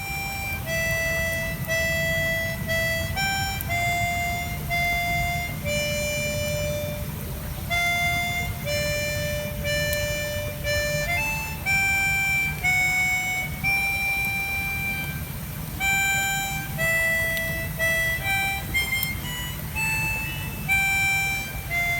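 Harmonica playing a slow melody of single held notes, each lasting roughly half a second to a second, over a low steady rumble.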